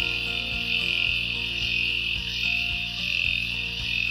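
Cordless electric pet clippers running with a steady, high-pitched buzz as they are drawn through a doodle's curly coat.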